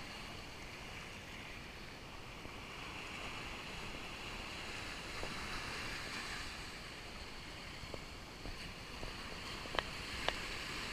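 Gentle surf washing on the shore, a steady hiss that swells a little and falls back, with a few faint clicks and two sharper ones near the end.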